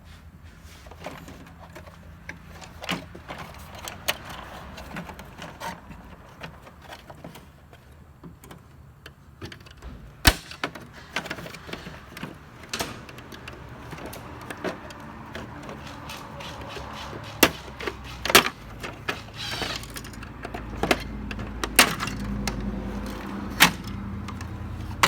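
Plastic instrument-cluster front cover being unclipped and handled: scattered sharp clicks and snaps, the loudest about ten seconds in and several more near the end, over a low hum that comes up in the last few seconds.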